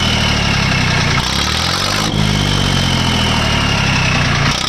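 Whistle fitted on a Farmtrac 60 tractor's exhaust stack sounding twice. Each time it gives a high, steady note that sags slightly in pitch: the first lasts about a second, the second about two seconds. Under each one the diesel engine rises and falls in revs.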